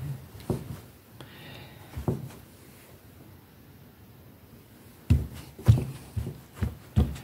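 Soft thuds of a hand pressing and dabbing a towel onto a wet banknote lying on another towel, blotting out the water: a few single pats at first, then a quick run of about two pats a second from about five seconds in.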